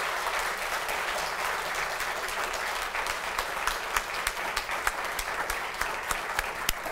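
Audience applauding: a dense, even clapping that thins out into scattered individual claps over the last few seconds.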